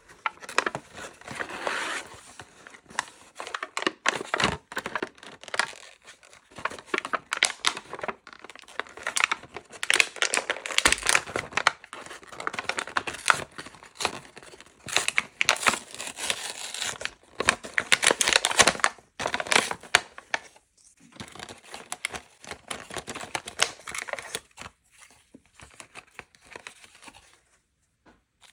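Packaging from sweets and toys being crinkled and torn open by hand, in a rapid run of crackles and rips that thins out near the end.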